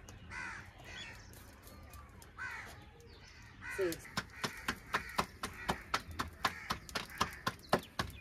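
A bird gives several short, harsh calls, and from about four seconds in a fast, even run of sharp knocks follows, about four a second.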